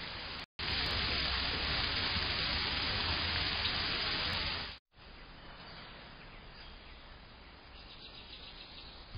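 Steady hiss picked up by a small outdoor security camera's microphone, louder for the first four seconds or so, then quieter. It drops out abruptly twice, where separate camera clips are joined.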